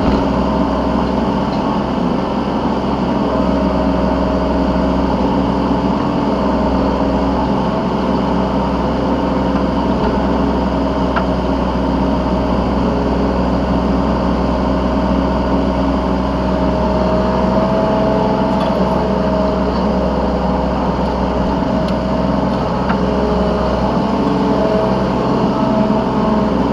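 Yanmar B3 Sigma 3-ton mini excavator's diesel engine running steadily, heard from the operator's seat. Its pitch rises and falls slightly as the machine works.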